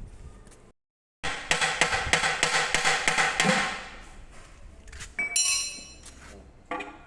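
Rapid metallic knocking, many sharp strikes in quick succession for about two and a half seconds, then a single ringing metal clang, as a Mercedes 1525 truck gearbox is worked apart.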